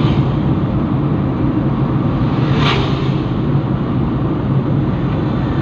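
Car cabin noise while driving: a steady engine hum and road rumble heard from inside the car, with a short hiss about halfway through.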